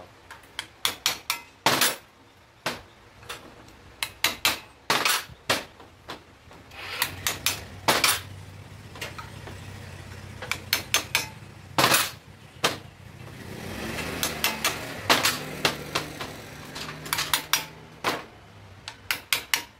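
Hammer tapping out a motorcycle's old steering-head bearing race from its seat on the triple clamp: sharp metal-on-metal strikes, irregular, some single and some in quick runs, kept light so the seat is not damaged. Through the middle a steady low engine hum runs underneath, swelling a little before fading.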